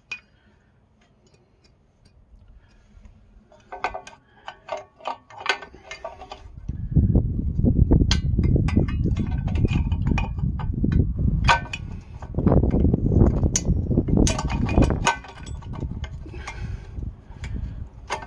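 Needle-nose vise grips clicking and clinking against the steel parking-brake shoe hardware of a rear disc brake, a few sharp metal ticks at a time. From about seven seconds in, a heavy, uneven low rumble runs under the clicks.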